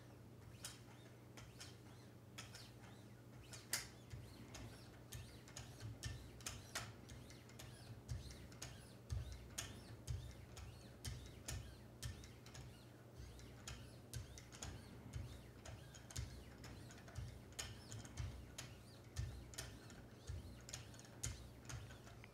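Wicked Edge guided knife sharpener worked by hand, 3-micron diamond lapping films on plastic holders stroked along a steel blade. Faint, irregular clicks and light scrapes, roughly one to two a second, over a steady low hum.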